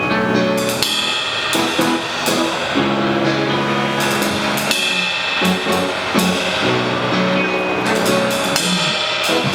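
A drum kit played live over a recorded pop song. The drums and cymbals come in about a second in, with repeated cymbal crashes ringing over the song's held chords.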